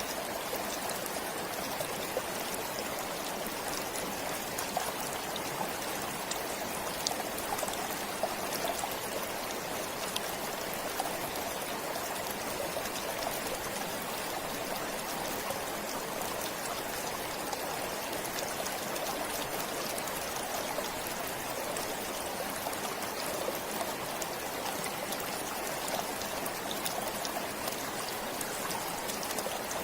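A stream flowing steadily, with an even rush of water and small trickling splashes.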